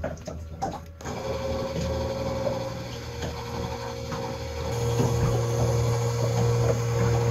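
Echo Tec watermaker's electric pumps starting up as it is commissioned. A steady motor hum comes on about a second in, and a second, louder pump joins near five seconds in.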